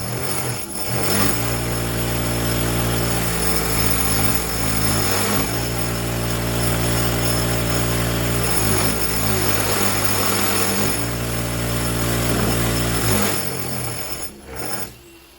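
Electric power tool with a spinning wheel running steadily, its pitch dipping briefly several times, then winding down and stopping about 13 seconds in.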